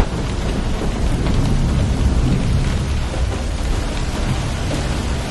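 Heavy rain falling steadily with a continuous low rumble of thunder underneath.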